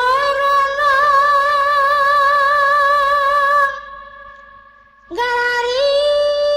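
A Sundanese sinden (female gamelan singer) sings long held notes with a wavering vibrato. The first note is held for about three and a half seconds. It gives way to a fainter steady instrumental tone, and a second held note slides in about five seconds in.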